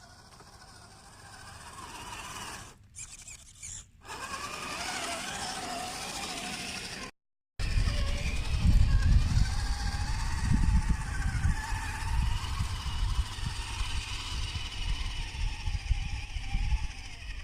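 Electric motor and gears of an Axial SCX10 II radio-controlled crawler whining, the pitch rising and falling with the throttle. After about seven and a half seconds a loud low rumble joins it.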